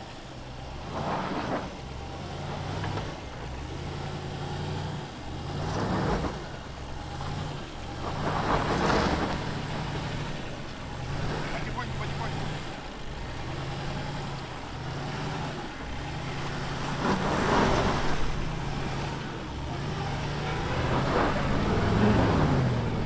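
Range Rover L322's V8 engine pulling under load up a steep sandy slope, its revs stepping up and down. Several louder surges come as the wheels spin and throw up loose sand.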